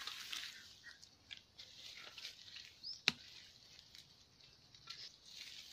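Hands scraping and pulling at mud, grass and dry leaves around a buried bamboo basket trap: scattered soft rustles and crackles, with one sharp click about three seconds in.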